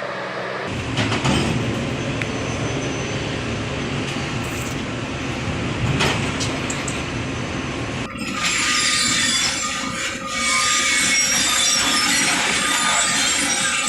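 Heavy log-handling machinery running with a rattling, clattering noise. The sound changes abruptly about a second in, and again about eight seconds in, when it turns harsher and hissier.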